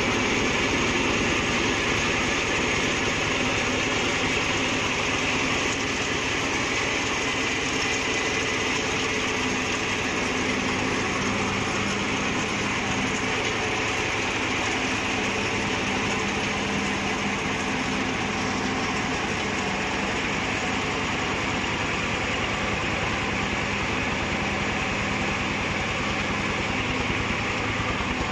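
Mini combine harvester running steadily: an even engine note with a fast, regular pulse under a broad mechanical hiss and rattle.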